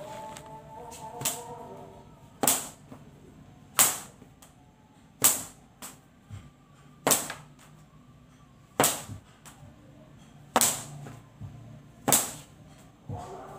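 A pecut, a traditional whip, cracked over and over: about eight sharp, loud cracks, one every second and a half or so.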